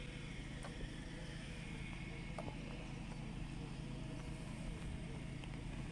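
An engine running steadily, a low hum with a few faint clicks over it.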